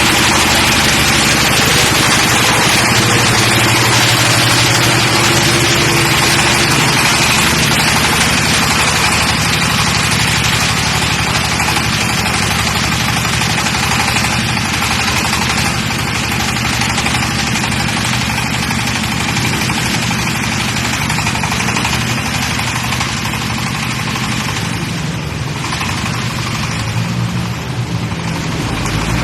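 Crawler drilling rig's engine running steadily, loud and even throughout.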